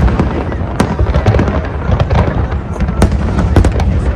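Fireworks going off in quick succession: many sharp bangs and crackles over a continuous low rumble.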